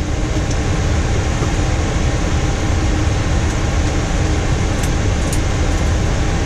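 Steady rush of the Boeing 737-800 cockpit's air conditioning and cooling fans, with a constant low hum and rumble, while the aircraft sits at the gate before engine start. A few faint clicks come near the middle.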